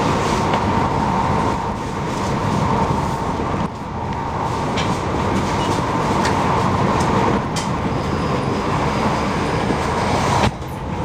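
Passenger train running at speed, heard from inside the carriage: a steady rumble of wheels on rail with a steady hum. The level dips for a moment a few times.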